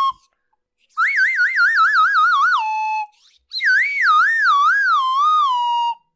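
Two cartoon whistle sound effects, each a warbling tone that wobbles up and down while sliding downward. The first wobbles quickly, about eight times, then drops to a held lower note; the second wobbles more slowly, about four times, and sinks lower still.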